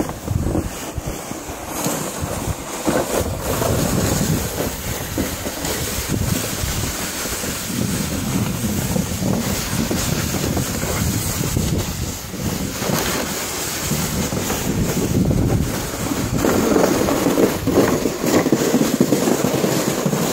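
Red plastic snow pusher sliding over thin snow and asphalt as it is pushed along, its base scraping and hissing steadily, a little louder near the end.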